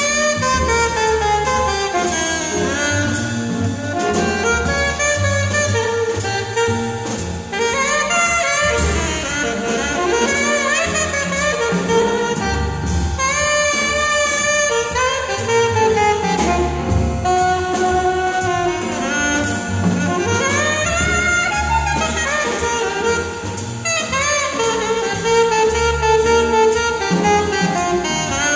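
Live small jazz combo playing a blues: an alto saxophone carries a continuous melodic solo over double bass and drum kit.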